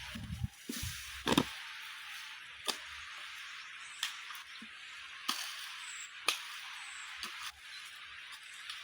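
A series of sharp knocks or strikes, irregularly spaced about a second apart, with a low thud in the first second and a half, over a steady high hiss.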